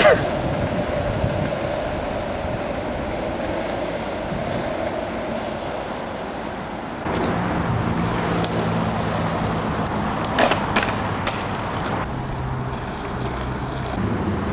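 Skateboard wheels rolling on asphalt, a steady rolling noise. About seven seconds in it gives way to a lower, steadier hum with a few sharp clicks.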